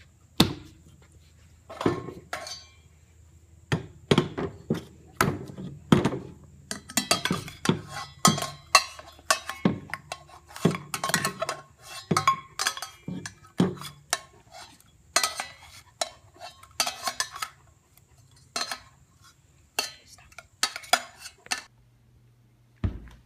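A utensil knocking and scraping around inside a small stainless-steel pot, in irregular clanks, some ringing briefly.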